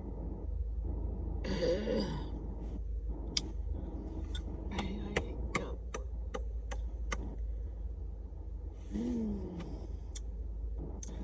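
Two short throaty vocal sounds, about two seconds in and again near nine seconds, from a person trying to bring up a burp after a big meal. A run of sharp light clicks falls between them, over a steady low hum.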